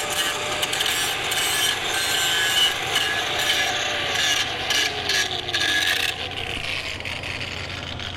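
Angle grinder working over the first aluminium weld pass between passes, with a harsh rasping scrape against the metal. About four seconds in, the motor's tone slides down as it winds down, and the scraping thins out toward the end.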